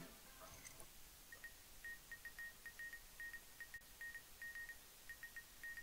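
Faint electronic beeps at one high pitch, keyed on and off in an irregular pattern of short and long tones like Morse code, part of a radio-themed music soundtrack. Music fades out at the very start.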